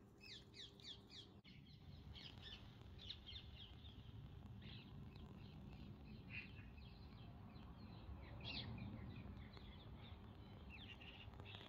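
Faint birdsong: small birds chirping in quick runs of short high notes, over a low steady background rumble.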